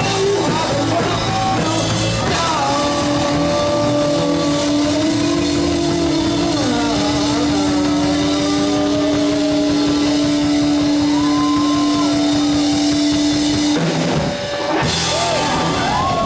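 A live rock band plays with electric guitars, bass guitar and drum kit, over one long held note lasting about ten seconds. The music briefly dips near the end.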